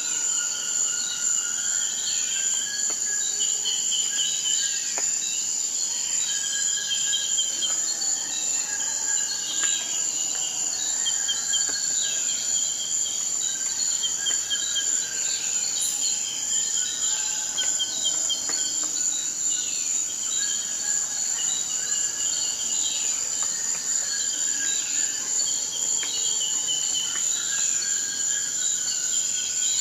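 Forest insect chorus: a steady high-pitched cricket-like trill. Over it, short chirping trills and falling calls repeat and overlap at a lower pitch.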